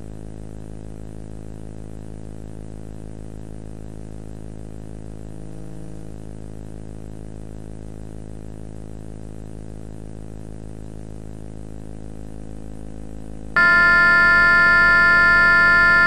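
A steady, fairly quiet electronic hum, then a loud, steady alert tone made of several pitches at once that starts abruptly about three-quarters of the way in and holds.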